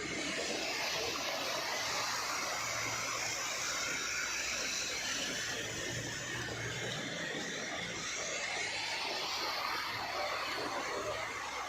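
Steady engine and traffic noise from vehicles: an even rumble with a low hum underneath, no sharp knocks or horns.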